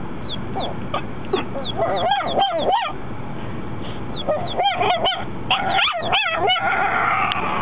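Chihuahua puppy's first barks, high-pitched, yappy and not yet fully formed, at a fluffy chick toy. They come in three quick volleys of a few barks each: about two seconds in, around five seconds, and around six seconds.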